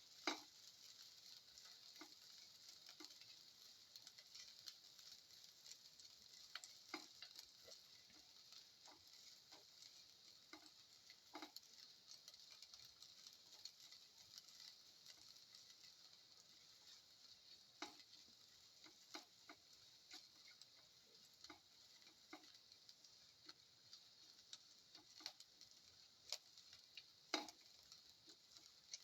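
Shallots and cumin seeds sautéing in hot oil in a pan: a faint, steady sizzle with scattered clicks as they are stirred.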